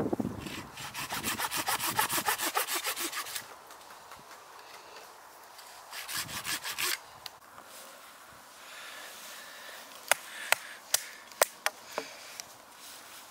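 A custom bushcraft knife sawing back and forth across a piece of wood: a quick, even rasping run of strokes, about five a second, for the first three seconds, another short burst of strokes about six seconds in, then a handful of sharp clicks of the blade on the wood.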